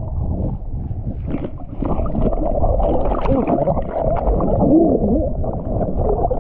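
Sea water sloshing and gurgling over a waterproof action camera held at the surface, turning muffled and bubbly as the camera dips underwater.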